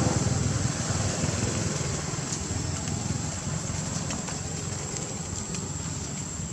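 A motor vehicle engine running and slowly fading away, over a steady high-pitched whine.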